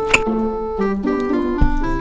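Background piano-like keyboard music playing a melody of short stepped notes, with two brief sharp clicks, one just after the start and one about one and a half seconds in.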